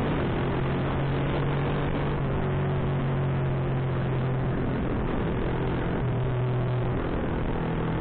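Honda Supra motorcycle's single-cylinder four-stroke engine running at a steady cruise, its note shifting slightly in pitch now and then, over a steady rush of road and wind noise.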